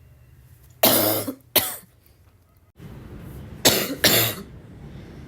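A person's barking cough: two harsh coughs about a second in, then two more about three and a half seconds in.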